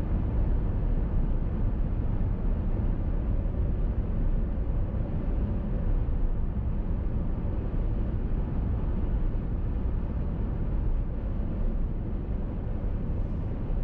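Steady low rumble of a car driving along a highway: tyre and engine noise with no change in pace.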